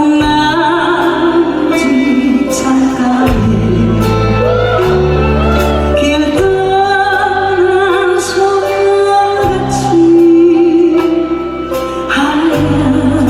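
A woman singing a slow Korean ballad over instrumental accompaniment, holding long notes with vibrato.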